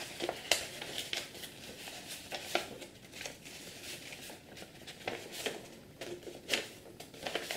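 Sheet of creased paper rustling and crinkling as hands flex it into a folded cone, in short irregular crackles.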